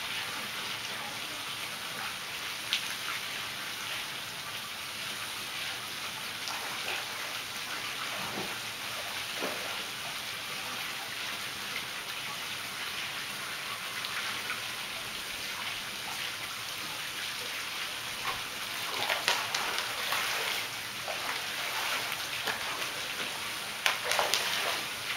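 Water spilling from the raised spa into the pool, a steady splashing patter, with a few louder splashes in the water near the end.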